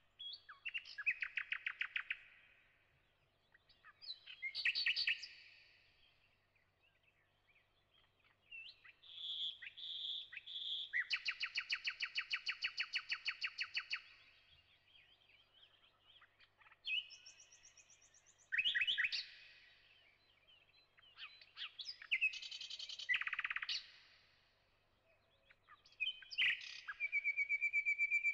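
A songbird singing phrases of rapid chirps and trills, with short pauses between them, ending in a long fast trill.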